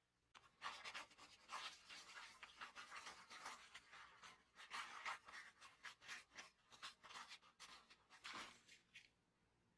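Faint dry rubbing and scratching of a paper towel wiping over a small gear in gloved hands, in many short irregular strokes.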